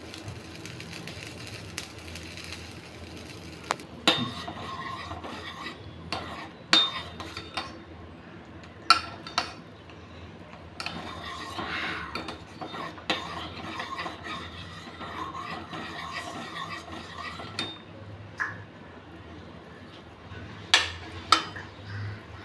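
A spoon stirring and scraping in a cooking pot, with about nine sharp clinks of the spoon against the pot, the loudest near the end.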